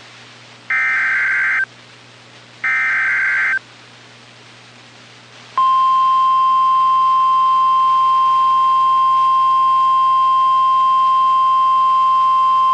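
Two bursts of the screeching digital SAME data header of an Emergency Alert System message, each about a second long and a second apart. After a pause, the steady single-pitch 1050 Hz NOAA Weather Radio warning alarm tone starts about five and a half seconds in. Together they announce an incoming tornado watch alert.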